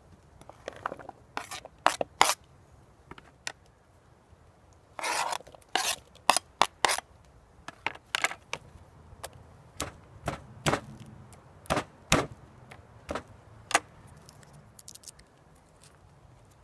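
Boning knife chopping vegetables on a plastic cutting board: irregular sharp knocks of the blade on the board, sometimes two or three a second, with a brief scrape about five seconds in.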